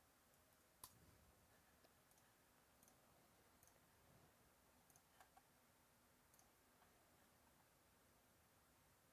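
Near silence with faint, scattered computer clicks, a sharper one about a second in and about a dozen softer ones after it, as a mouse and keyboard are used.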